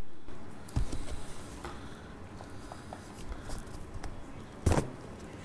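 A small child biting and chewing corn on the cob: scattered soft crunches and clicks, with a knock just under a second in and a louder thump near the end.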